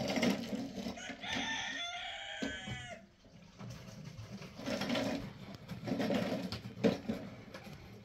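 A rooster crows once, a call of about a second and a half that falls in pitch at the end, starting about a second in. A few short knocks follow later, the sharpest near the end.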